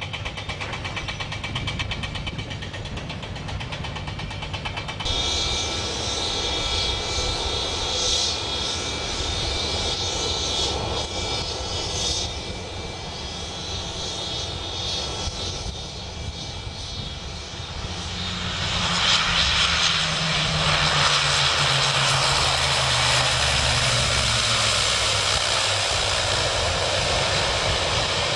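ATR twin-turboprop airliner landing: a steady propeller and engine drone that grows much louder about two-thirds of the way through as the aircraft reaches the runway, with a low engine tone falling in pitch as it rolls past.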